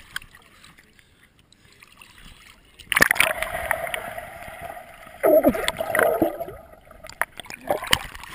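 A swimmer plunging into a pool, recorded underwater by a GoPro in its waterproof housing: a sudden loud plunge about three seconds in, then rushing bubbles and churning water with a second burst of bubbling. Near the end come sharp splashy clicks as the camera reaches the surface.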